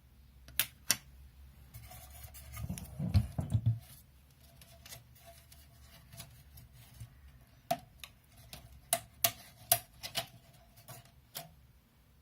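Sharp clicks and knocks of hard parts being handled by hand, with a cluster of duller, louder thumps about three seconds in and a run of single clicks in the second half.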